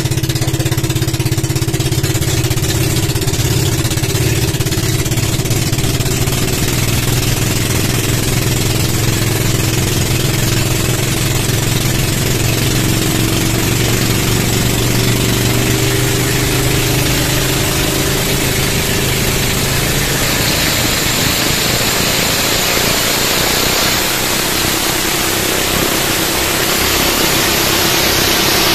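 Twin Honda 16 hp engines of a fiberglass outrigger boat running steadily at speed, a constant engine drone over the rush of water and wind, with the hiss growing louder about two-thirds of the way through.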